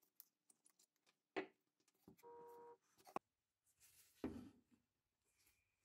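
Faint handling sounds of a rifle being taken apart: a few sharp clicks and knocks of a screwdriver, screws and a metal fitting against the wooden stock, with a short squeaky tone a little over two seconds in.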